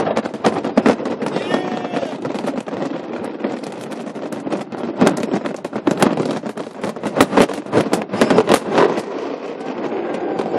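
Aerial fireworks shells bursting in quick succession, a dense run of bangs and crackling that thins out for a couple of seconds early on and then packs together again.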